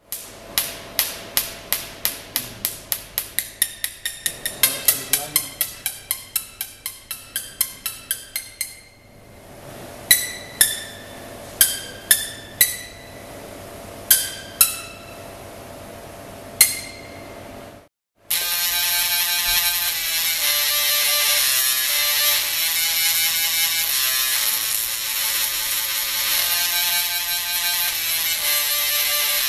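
A run of struck, ringing notes, quick at first, then thinning to single notes over a faint hiss. After a short break about 18 seconds in, a student-built singing Tesla coil at 60 kV plays a buzzy melody with its spark discharge.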